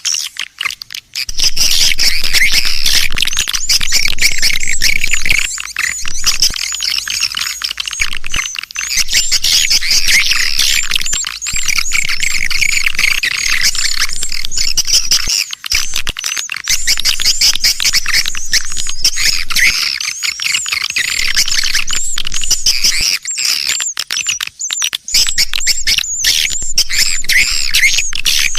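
Swiftlet lure call: a dense, continuous chatter of many swiftlets twittering and chirping at a high pitch, the kind of recording played to draw swiftlets into a swiftlet house.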